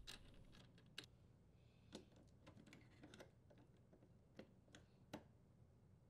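Near silence with a handful of faint, short clicks about a second apart: a strain relief nut and power cord being handled and threaded at a sheet-metal junction box.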